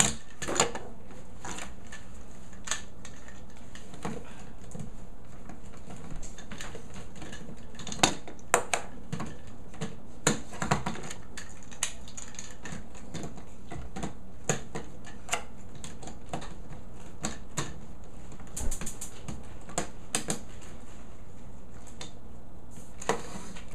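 Hard plastic toy parts clicking and clacking irregularly as Power Rangers Samurai Disc Cycle toys are pulled off and snapped onto a Megazord action figure, over a faint steady low hum.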